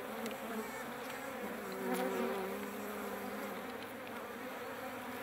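Honeybees (Apis mellifera) buzzing over an open hive, a steady many-voiced hum that wavers slightly about two seconds in, with a few faint clicks.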